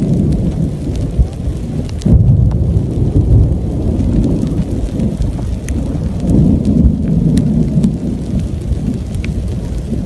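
Thunder rumbling deep and long, surging suddenly about two seconds in and swelling again later, with scattered ticks of raindrops.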